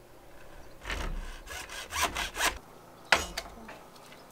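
Hacksaw cutting through white plastic pipe: a quick run of about six strokes, finishing the cut. A sharp knock follows about three seconds in.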